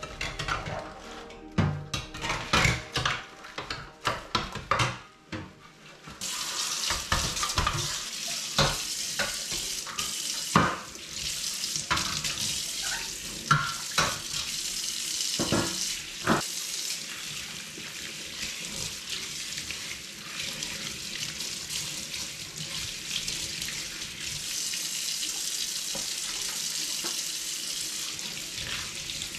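Clinks and knocks of dishes and utensils, then a kitchen tap comes on about six seconds in and runs steadily into the sink, with more clinks of things being washed under it.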